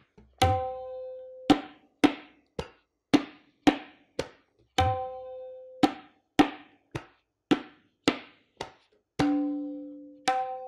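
A tabla pair played at a slow, even pulse of about two strokes a second: the 'dha tirakita taka, tinna kita taka' pattern of a beginners' lesson. Short dry strokes alternate with open ringing ones; twice a 'dha' rings out with a deep bass bloom from the bayan, and a lower ringing stroke sounds near the end.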